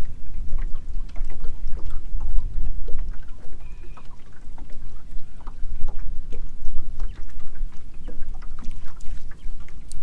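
Choppy water lapping and splashing against the hull of a small boat, with many small irregular slaps, over a steady low wind rumble on the microphone.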